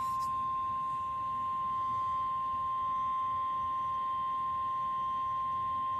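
NOAA Weather Radio warning alarm tone: one steady, unbroken high beep at a constant level that cuts off at the very end. It signals that a warning is about to be read.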